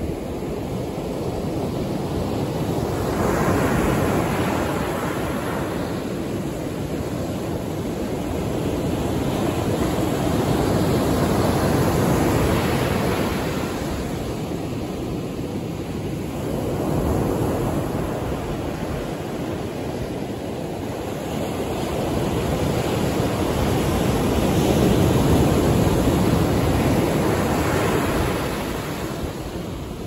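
Ocean surf breaking and washing up a sandy beach: a steady rushing that swells and eases about four times as waves come in.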